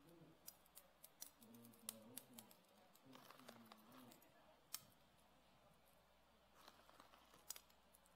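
Near silence, broken by faint, scattered light clicks and rustles from small candy balls and a clear plastic bag being handled as the candies are set by hand on a frosted cake.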